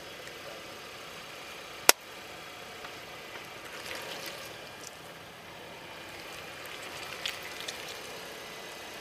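A balloon packed with water beads bursting with one sharp pop as scissors cut it, about two seconds in. Small crackles follow a couple of seconds later and again near the end as the loose beads scatter over the asphalt.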